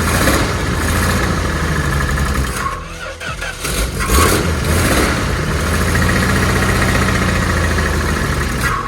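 Dodge D100 pickup's engine being cranked over by the starter in a start attempt, a rhythmic pulsing churn that breaks off briefly about three seconds in and then cranks again.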